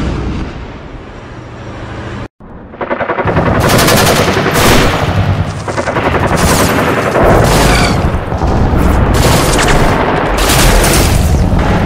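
A rocket salvo's rumble fading away, then after an abrupt cut, loud sustained automatic gunfire in rapid, overlapping bursts.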